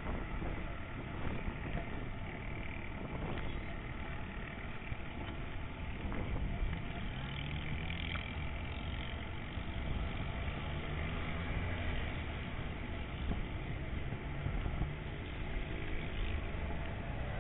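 Outdoor ambience: wind rumbling on the camera microphone, with a low hum of a car engine running in the background.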